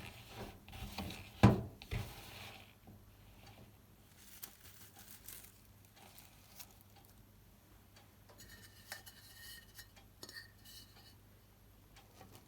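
Kitchen utensils and dishes knocking and clinking: one sharp knock about a second and a half in, then quieter scraping and light clinks, with a brief ringing of glass or metal later on.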